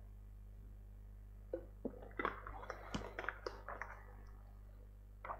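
Quiet room with a steady low hum, and a scattering of faint, irregular clicks and small smacking noises in the middle.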